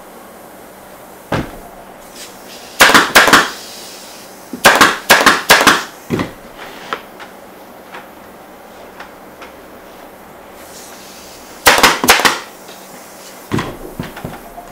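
Pneumatic upholstery staple gun firing staples into a chair's wooden tacking rail: short bursts of rapid, sharp shots, a few seconds apart, with a single shot in between and a last burst of about three near the end.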